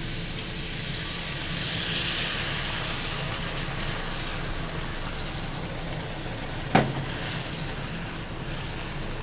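Chicken curry sizzling in a wok as lukewarm water is added, with a metal ladle stirring; the sizzle swells about two seconds in. The ladle clanks once against the wok about seven seconds in.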